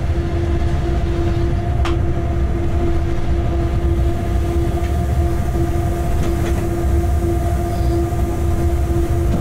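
Locomotive running light, heard from inside the cab: a steady low rumble with a constant hum over it and one sharp click about two seconds in.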